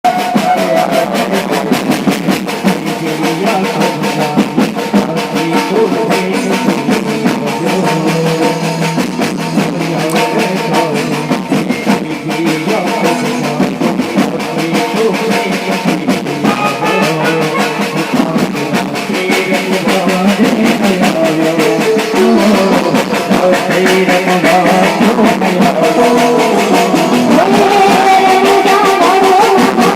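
Loud music with singing and a fast, steady drum beat played over a sound system.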